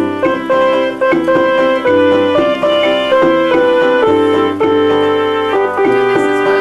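Home electronic organ playing a melody over held chords and sustained bass notes, the notes changing about twice a second.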